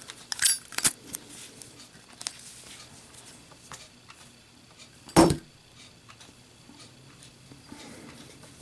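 A couple of sharp metallic clicks from a Zippo chrome pocket lighter, then about five seconds in a single loud knock as the lit lighter is dropped and lands in a drop test.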